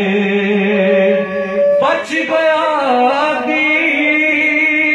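A man's voice chanting a noha, an Urdu lament for the mourning of Karbala, into a microphone. He holds a long sung note, then starts a new phrase with a wavering, ornamented pitch just under two seconds in.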